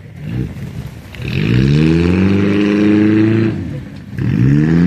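Demolition derby car's engine revving hard: a long rev that climbs in pitch and holds for about two seconds, then drops, and a second rev climbing again near the end.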